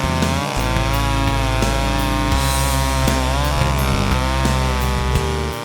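Two-stroke gas chainsaw running and revving as it cuts, its pitch rising and falling, under background music with a steady beat and a bass line.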